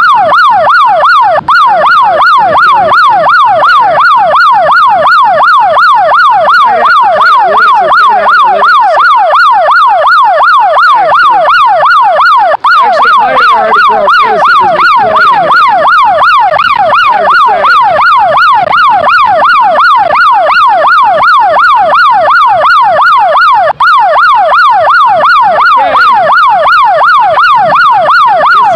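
A loud, siren-like electronic warbling tone: rising sweeps repeating evenly, about three a second, without a break.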